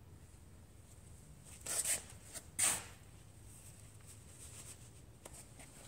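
Quiet room tone broken by two brief rustling noises, a little under two seconds in and again just under a second later.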